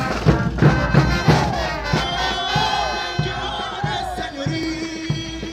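Live festival band music for a folk dance: a steady drum beat of about three strokes a second under wavering melody lines, with crowd voices mixed in.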